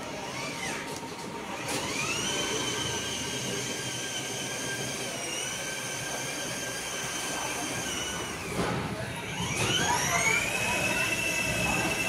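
Electric drive motors of a children's battery-powered ride-on Jeep whining: they spin up to a steady high pitch, hold it for several seconds, wind down about eight seconds in, then spin up and hold again.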